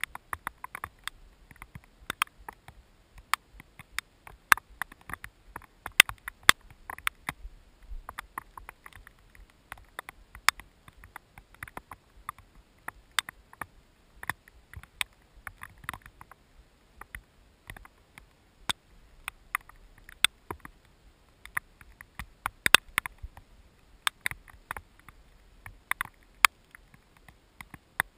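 Raindrops striking a camera's waterproof housing: irregular sharp ticks and taps, several a second, some louder than others, as a mountain thunderstorm's rain begins.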